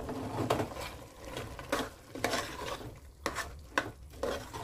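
Spoon stirring and scraping around a pressure-cooker pot as ground masala and a little water are mixed into sizzling mutton, in irregular strokes about two a second.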